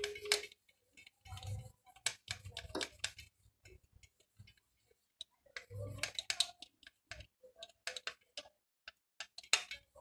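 Faint, irregular small clicks and rubbing of cotton being wiped over the contact pads of a remote control's circuit board, with the plastic casing handled in the fingers, cleaning the button contacts with sanitizer.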